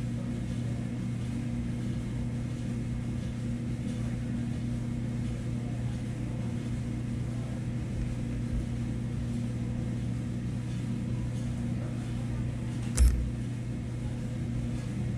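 Steady low machine hum, with one sharp knock about thirteen seconds in.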